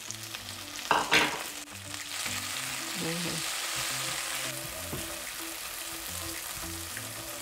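Diced onion, garlic and freshly added chopped tomatoes frying in hot avocado oil in a pan, sizzling as they are stirred. A short louder burst of sizzle comes about a second in, then a steady sizzle that is strongest between about two and four and a half seconds.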